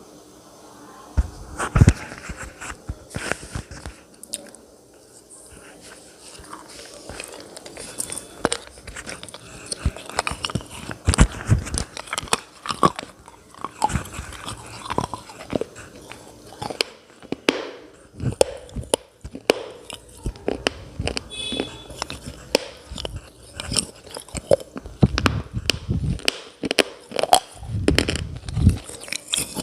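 Close-up biting and chewing of brittle, chalk-like clay or slate pieces: many irregular sharp crunches and snaps, coming thicker after the first few seconds.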